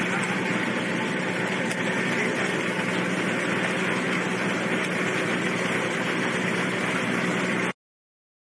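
Steady low engine drone with an even rushing noise from a moving vehicle, cutting off suddenly to silence near the end.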